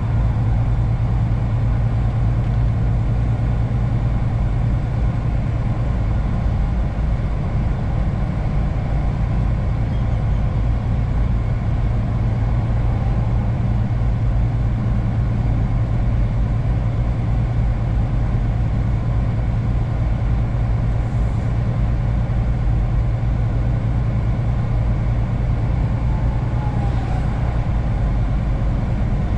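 Steady low drone of a semi truck's engine and tyres, heard inside the cab while cruising on the highway.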